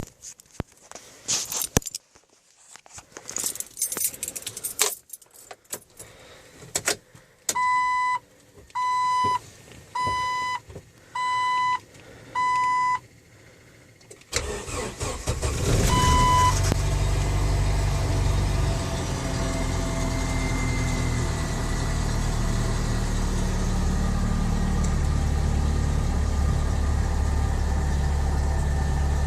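Keys jangling and clicking, then a warning chime beeping five times about a second apart. About fourteen seconds in, the Jeep Wrangler's 2.5 L inline-four cranks with a grinding noise at startup and catches, then settles into a steady idle.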